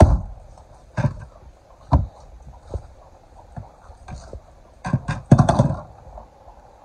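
A length of wood hammering the back of a machete to drive the blade through a large African pompano: three sharp knocks about a second apart. Lighter knocks follow, then a quick cluster of thumps and knocks around five seconds in.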